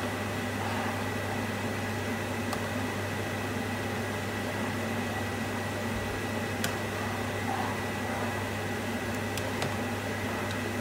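Induction hob running with a steady hum and a faint high whine. A spoon stirring sauce in a frying pan gives a few light clicks against the pan in the second half.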